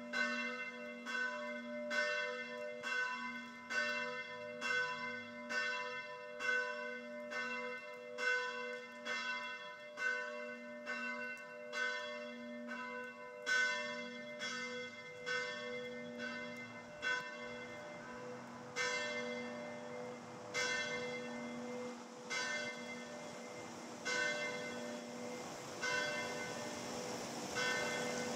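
A bell being rung repeatedly, each stroke ringing on over the next, about three strokes every two seconds. Over the second half the strokes grow fainter and further apart while a steady background noise rises.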